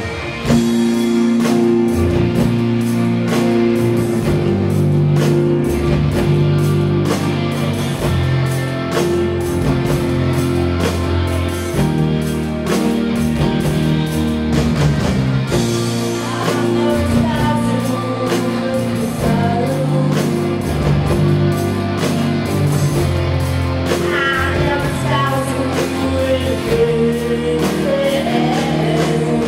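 Live rock band playing with drum kit, electric guitar, bass guitar and keyboard, the full band coming in just after the start. A young woman sings lead over it, mostly in the second half.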